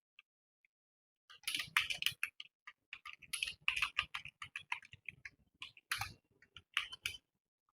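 Computer keyboard being typed on in a fast, continuous run of key clicks, starting after about a second and a half of quiet.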